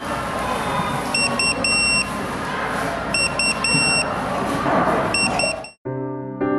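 An electronic beeper sounds a repeating pattern of two short high beeps and one longer beep, three times about two seconds apart, over loud steady noise. The noise cuts off abruptly near the end and soft piano music begins.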